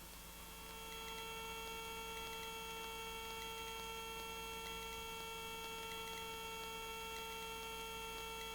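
Faint steady whine with several evenly spaced overtones, fading in over the first second and then holding level, from a Cabri G2 helicopter in flight.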